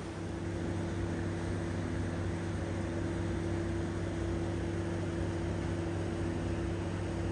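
Steady low mechanical hum that holds one pitch throughout, over an even rushing noise.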